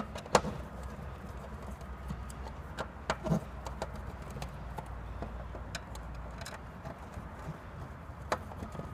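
Scattered small clicks and taps of a screwdriver working the screws out of a solar panel's black plastic junction box lid, the sharpest about half a second in, over a low steady rumble.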